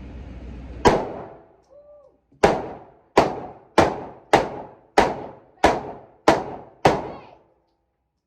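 Gunshots from a firearm at a shooting range: one shot, a short pause, then seven more in a quick, even string about two every second, each with a short echoing tail.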